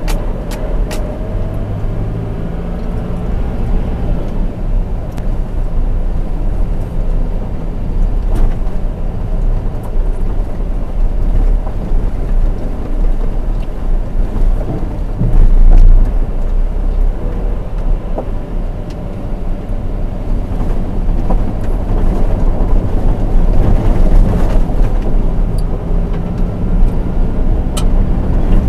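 Four-wheel drive creeping along a rough dirt track, heard from the dashcam inside the cab: the engine runs low and steady, with tyre and suspension noise and scattered knocks and rattles from the body. About halfway through there is a louder rumble as the wheels cross a timber bridge.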